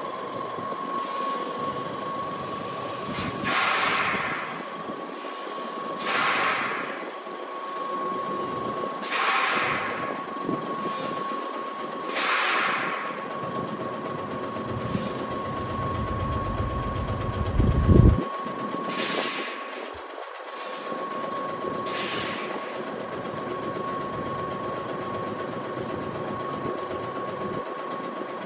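Mitsubishi Fuso Aero King bus's air brake system letting out short hisses of released air, most about three seconds apart, like slow breathing, over a steady whine. Midway a low rumble builds and ends in a sudden thump, the loudest moment.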